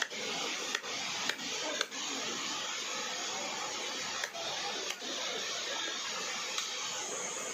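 Cleaver chopping fish on a wooden chopping block: three sharp chops in the first two seconds, over a steady background noise.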